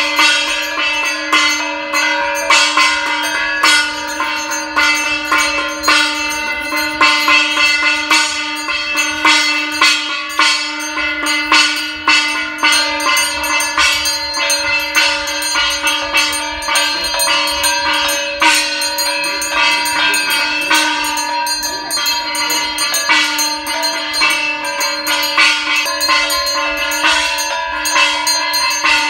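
Brass hand bell (puja ghanta) rung continuously during Hindu puja worship: rapid, unbroken strikes over a steady metallic ring.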